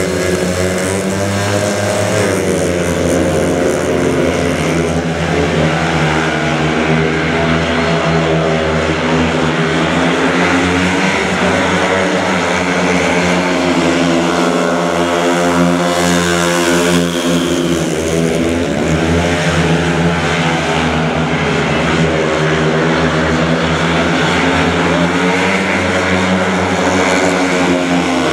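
Several 500cc single-cylinder speedway motorcycle engines racing, rising in pitch about two seconds in and then rising and falling repeatedly as the bikes run the bends and straights.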